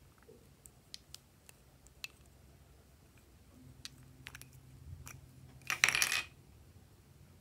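Plastic lip balm tubes handled with small scattered clicks, then a brief loud rattling clatter about six seconds in as the plastic caps come off.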